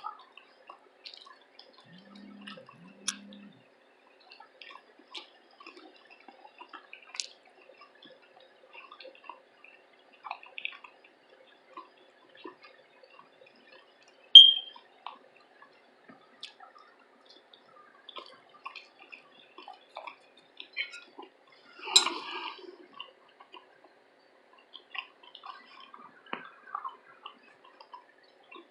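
Close-miked eating: quiet wet chewing and mouth clicks, with a single sharp, ringing clink of a utensil against a dish about halfway through. About three quarters of the way in there is a louder noise lasting about a second.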